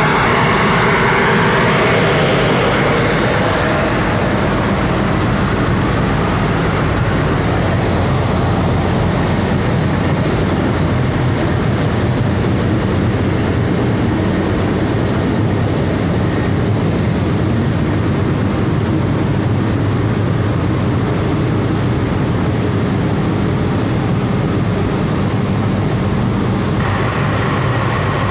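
Large centrifugal fans of an industrial grain dryer running: a loud, steady rush of air over a low motor hum. The airy part is strongest in the first few seconds and again near the end.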